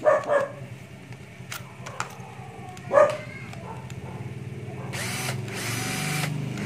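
A used cordless drill-driver being test-run: its small motor starts whirring about five seconds in and keeps running. Before that there are a few sharp clicks and two short dog barks, the second bark the loudest sound.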